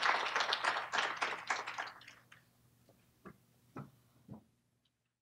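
Audience applause after a talk, dying away over about two seconds, followed by three soft knocks about half a second apart.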